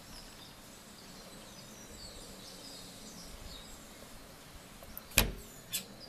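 Quiet handling of crochet work at a wooden table, with faint bird chirps in the background. About five seconds in come two sharp clicks, about half a second apart, the first the louder, as tools and work are handled on the tabletop.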